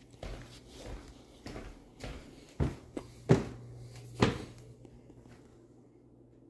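Footsteps of a person walking indoors, about two steps a second, across tile and onto a wooden floor. There are sharper knocks about three and four seconds in, and a low steady hum that starts about three seconds in.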